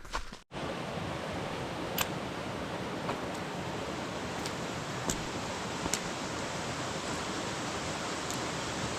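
Steady rushing of a mountain stream, an even wash of water noise that starts abruptly about half a second in, with a few faint clicks over it.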